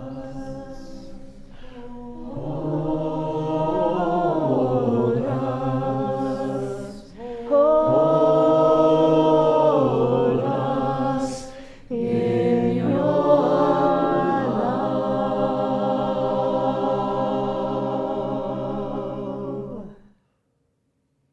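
Small mixed group of voices singing a slow mantra chant a cappella in long held phrases. It swells a couple of seconds in, pauses briefly for breath twice, and stops suddenly near the end.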